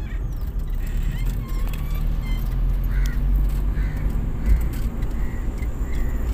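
Steady low rumble of a car driving, heard from inside the cabin, with a single thump about four and a half seconds in. A few faint, short high chirps sound over it.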